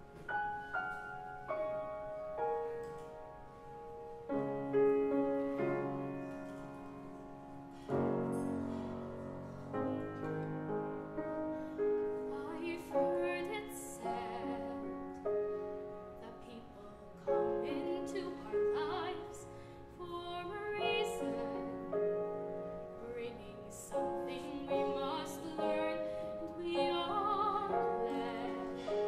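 A woman singing a slow ballad in a classical, operatic style with vibrato, accompanied by a grand piano.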